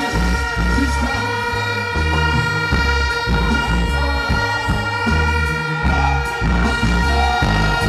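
Live reggae band music, loud over a concert sound system: held chords over a heavy, pulsing bass line.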